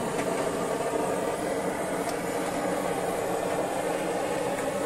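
Butane canister blowtorch flame hissing steadily as it singes the last feathers and down off a plucked duck.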